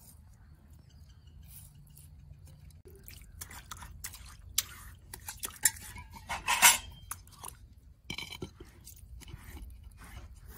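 Fingers scraping ground spice paste across a granite grinding stone (ammi), then rubbing the wetted stone by hand, with scattered scrapes and light knocks. The loudest scrape or knock comes about two-thirds of the way through.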